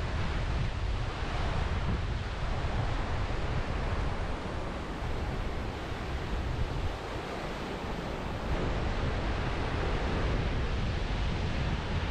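Surf washing onto a beach, with wind rumbling on the microphone; the surf eases briefly a little past the middle.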